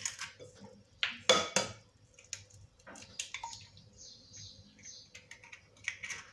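Two eggs being cracked and opened over a bowl of milk: small scattered clicks and cracks of eggshell. The loudest cracks come about a second in, and another egg is cracked near the end.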